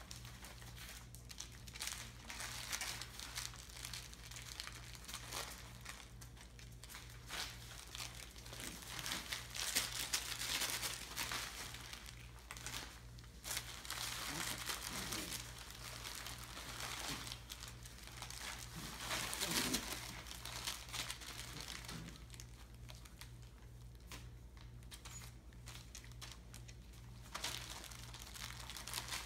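Irregular crinkling and rustling, as of 35-day-old Entlebucher puppies moving about in a paper-lined pen, louder about a third and two-thirds of the way through.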